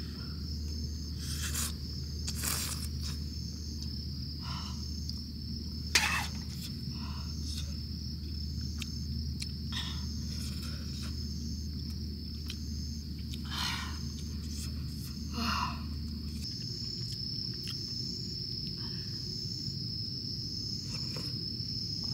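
Steady, high-pitched chirring of crickets, with scattered short eating sounds over it: utensils clicking against a metal pot and cup, the sharpest click about six seconds in.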